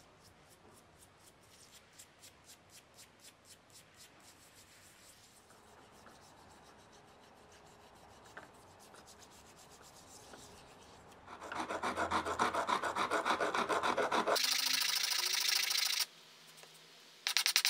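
A toothbrush faintly scrubbing a rusty plane blade in a tub of cleaning liquid, in quick, even strokes. About eleven seconds in, this gives way to loud, rapid back-and-forth rubbing of a wooden block with an abrasive face, which pauses for about a second near the end and starts again.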